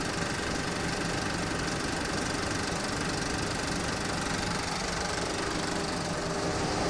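35mm film projectors running in the projection booth: a steady mechanical running noise with a faint steady whine, unbroken throughout.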